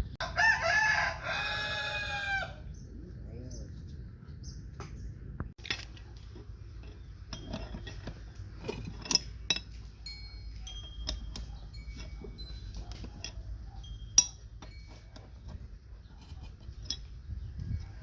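A rooster crowing once, a loud call of about two seconds. It is followed by scattered light clicks and taps and a few short high chirps.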